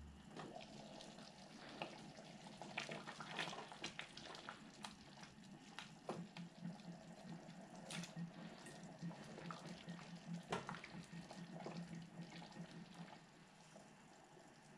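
A wooden spoon stirring thick lentil curry in a steel pot: wet sloshing and scraping, with many sharp clicks and knocks against the pot. The stirring eases off near the end.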